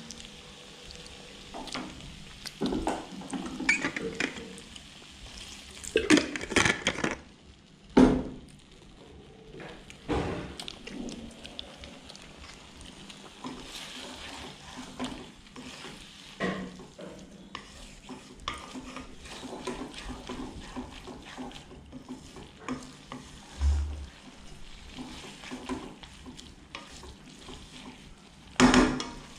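Noodles being stir-fried in a wok: a spatula stirs and scrapes the pan in irregular strokes over a light frying sizzle, with louder clanks about six to eight seconds in and again near the end.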